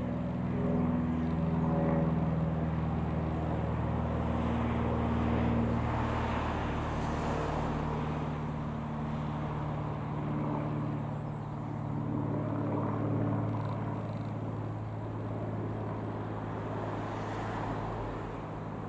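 Rockwell Commander 114's single piston engine and propeller droning steadily as the aircraft passes. Its pitch slides down partway through, then holds.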